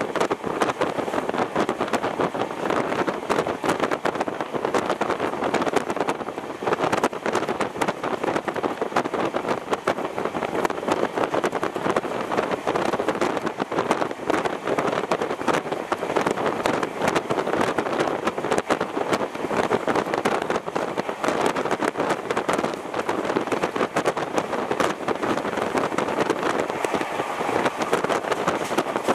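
A fast passenger train running at speed, heard from on board: a steady rush of wind and track noise broken by many small, irregular clicks.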